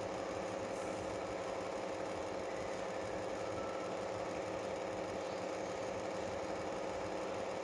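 A steady mechanical hum with one clear, unchanging tone, even in level throughout.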